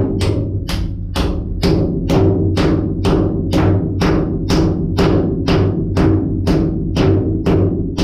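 Background music with a steady drum beat, about two beats a second, over held low notes.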